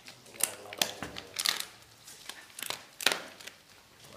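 A dog crunching and chewing chicken bones: a string of sharp, brittle cracks, about two a second.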